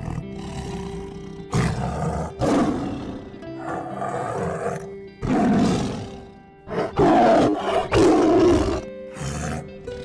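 Tiger roaring repeatedly, a string of loud rough roars a second or so apart, over steady background music.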